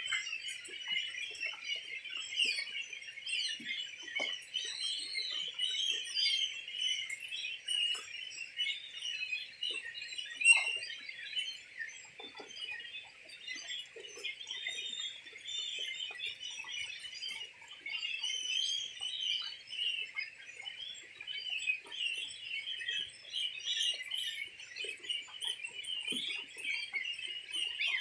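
A flock of young goslings peeping continuously, many high calls overlapping, with scattered small knocks and one sharper knock about ten seconds in.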